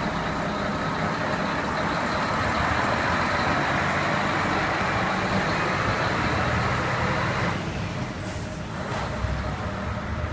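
Heavy diesel concrete mixer truck running, a steady engine sound with a noisy rush that drops away about seven and a half seconds in. A short hiss follows soon after.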